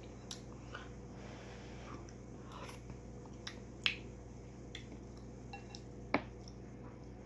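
Metal spoon scooping thick porridge from a ceramic bowl, with soft eating sounds and scattered light clicks. Two sharper spoon clinks on the bowl, one near the middle and one about six seconds in.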